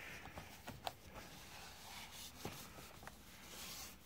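Faint scattered taps and light rubbing of a paper towel scrubbing a plastic dog litter tray.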